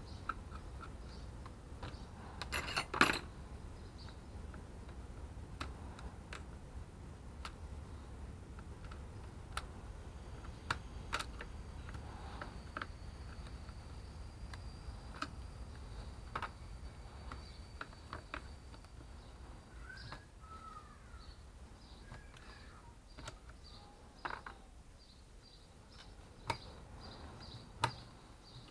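Scattered small clicks and metallic clinks of a screwdriver working the screws of a hand-held circular saw's plastic motor housing, and of screws and small parts being handled and set down, over a steady low background rumble. The loudest is a quick cluster of clicks about three seconds in.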